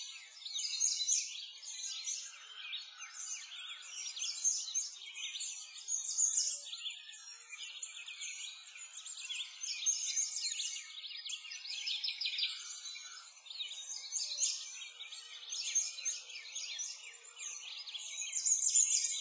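Background birdsong: a dense chorus of many birds chirping and twittering without a break, thin and high with no low sounds under it.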